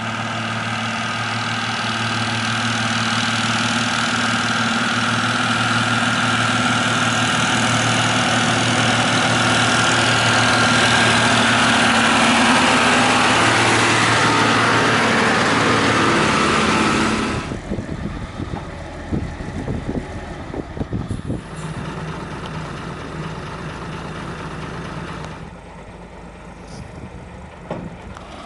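Steyr 8130 Turbo tractor's diesel engine running as the tractor drives closer and past, getting louder to a peak. About two-thirds of the way in the sound drops suddenly to a quieter steady engine running, with a few sharp knocks.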